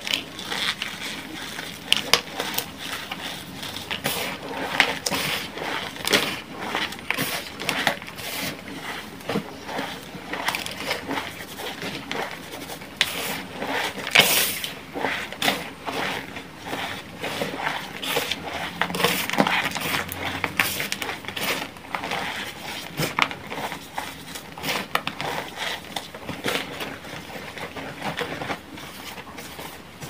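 Hands squeezing and crumbling powdery green gym chalk, a continuous irregular run of soft crunches and crackles.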